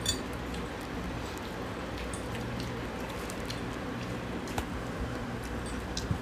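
Forks and spoons clicking against plates as chowmein noodles are eaten, a few sharp clicks scattered over a steady low hum.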